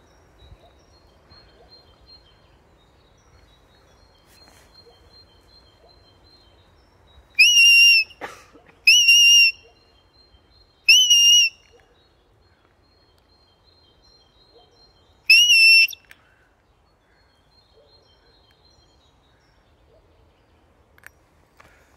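Dog training whistle blown in four short, steady, high-pitched blasts of about half a second each: two close together, a third a moment later, and a fourth a few seconds after that. These are whistle signals to a dog sent out ahead.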